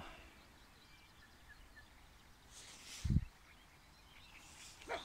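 Quiet outdoor ambience with a few faint bird chirps about one and a half seconds in, then a brief rustle and a short, soft low thump about three seconds in.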